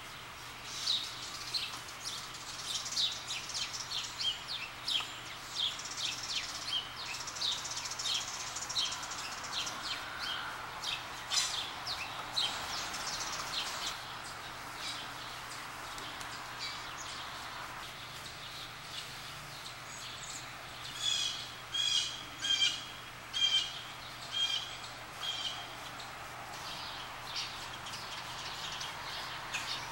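Blue jays calling: a run of quick, short high chirps through the first half, then, after a lull, a series of louder calls repeated about one and a half times a second.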